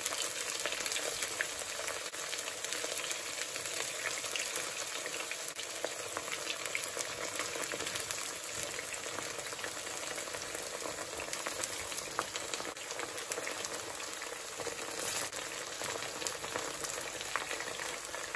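Thinly sliced steak frying in very hot oil in a pot: a steady sizzle with scattered crackles and pops.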